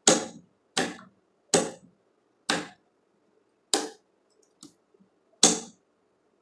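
Sharp mechanical clacks from a DOL starter board being switched off and on: the ABB contactor pulling in and dropping out as the supply and push buttons are operated. There are six loud clacks, roughly a second apart, with one faint tick between the fifth and sixth.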